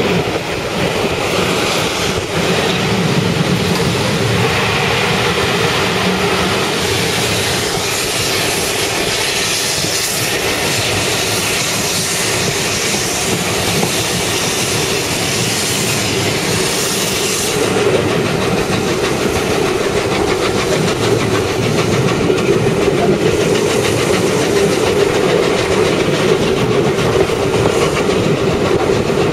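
Train running along the track, a loud, steady, continuous rolling noise. The high hiss in it eases off about two-thirds of the way through.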